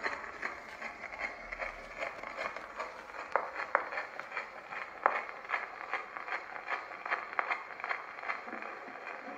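Edison Ideal phonograph playing the blank lead-in of a Sterling wax cylinder record through its horn: a steady surface hiss and crackle with regular faint ticks, before the recorded sound begins.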